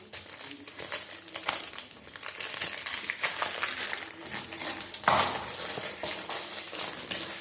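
Plastic packaging crinkling and rustling in the hands as a small parcel is opened, irregular crackles with a louder rustle about five seconds in.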